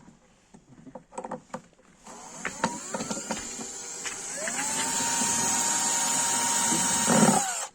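Handheld power drill run on its trigger to work a screw: a few clicks, then the motor whines up in pitch, runs steadily for a few seconds, and winds down to a stop near the end.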